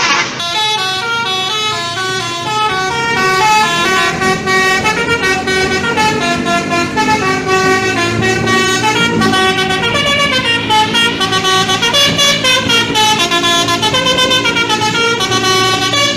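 Loud multi-tone telolet basuri horn playing a continuous tune, its notes stepping up and down, with several horn notes sounding together.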